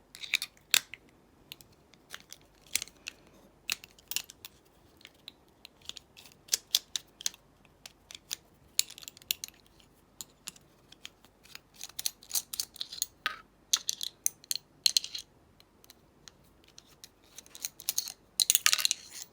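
Scattered small clicks and taps of metal padlock parts and tools being handled and set down while a Lockwood padlock is taken apart, busiest near the end.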